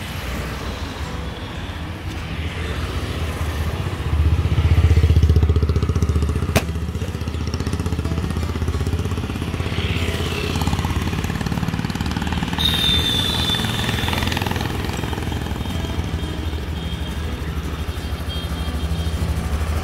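Honda Activa 125 scooter's single-cylinder four-stroke engine idling with a steady low pulse, louder for a couple of seconds about four seconds in, with a single click a little later.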